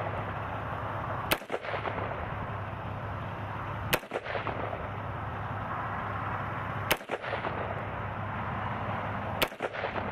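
Four single gunshots from an unsuppressed 300 Blackout AR pistol firing supersonic 150-grain full metal jacket rounds, spaced two and a half to three seconds apart, each with a brief echo.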